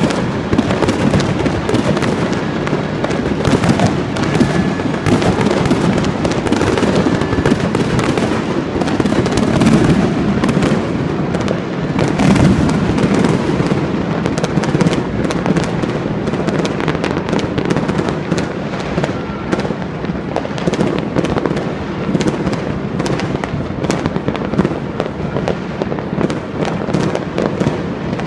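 Many fireworks going off at once, near and far: a dense, unbroken barrage of bangs, pops and crackle with no let-up.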